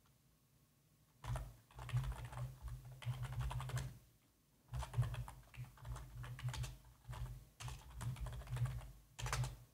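Typing on a computer keyboard: rapid runs of keystrokes, starting about a second in, pausing briefly around the four-second mark, then continuing.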